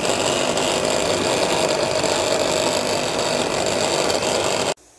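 Electric mixer grinder running at speed, grinding a dry red chilli-garlic chutney to powder in its jar. It is switched off and cuts out suddenly near the end.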